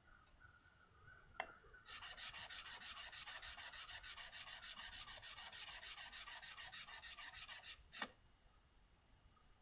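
Stanley No. 64 spokeshave's sole rubbed back and forth on 220-grit sandpaper to flatten it: a fast, even run of rasping strokes, several a second, starting about two seconds in and stopping near eight seconds. A sharp knock comes just before the strokes start and another just after they stop.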